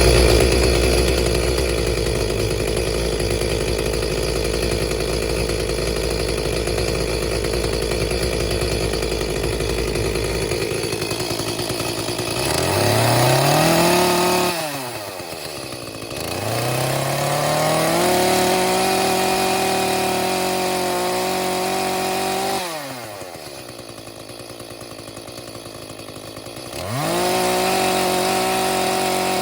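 Echo gas chainsaw's two-stroke engine running, starting abruptly. It is revved up three times, about a third, half and nine-tenths of the way in, holding a high, steady pitch for several seconds each time before dropping back toward idle.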